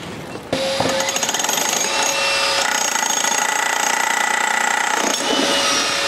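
Hilti Nuron battery demolition hammer chiselling into a concrete block, hammering steadily at a rapid rate. It starts about half a second in and breaks chunks off the block.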